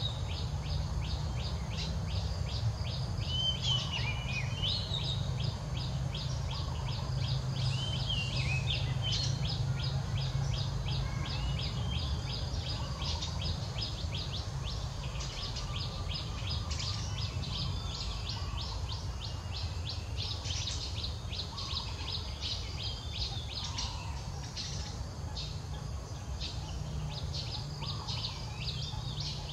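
Outdoor ambience of birds chirping: rapid, evenly repeated high chirps, several a second, with a few warbling calls in the first ten seconds, over a steady low rumble.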